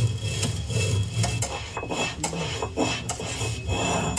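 Stone roller rubbed back and forth on a stone grinding slab: repeated gritty scraping of stone on stone as grain is ground into flour.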